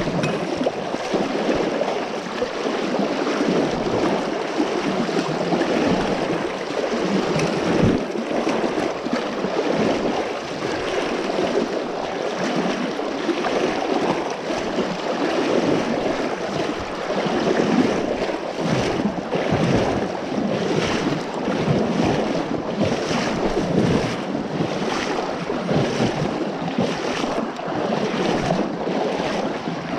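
Fast river current rushing and splashing around the legs of a person wading across the river, the water close to the microphone. In the second half a regular run of splashes, about two a second, comes with the wading steps.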